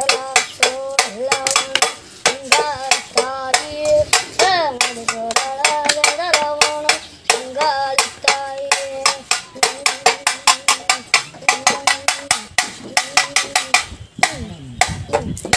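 A makeshift pambai drum, an empty paint can joined to a clay cylinder, beaten with a thin stick in a fast, steady rhythm of about five or six strokes a second, with a child singing a devotional call to the goddess over it.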